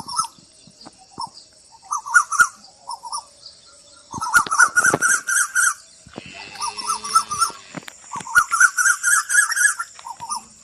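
Birdsong: four bursts of quick repeated notes, each lasting a second or so, with a fainter, lower call in the middle.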